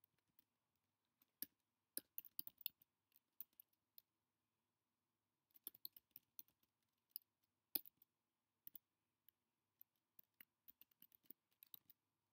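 Faint key clicks of a computer keyboard being typed on: a short run of keystrokes, a pause of about two seconds, then a longer, uneven run of typing.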